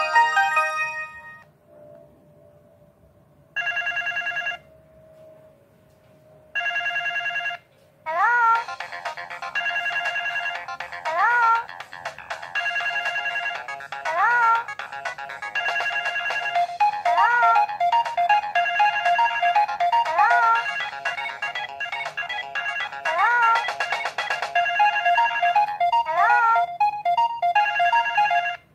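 A Samsung polyphonic MMF ringtone playing on a ZTE Z222 flip phone. After a short pause come two brief held buzzy chords, then a looping synth melody with a swooping upward note about every second and a half.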